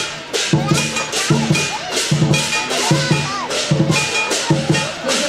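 Lion dance percussion: a large Chinese drum beaten in quick rolls with short breaks, and cymbals crashing about twice a second.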